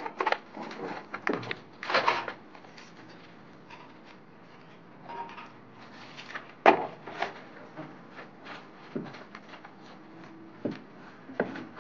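Trowel scraping wet gypsum plaster out of a tub and then spreading it on a metal-mesh wall: irregular scrapes and knocks, busiest at the start, with one sharp knock about two-thirds of the way in.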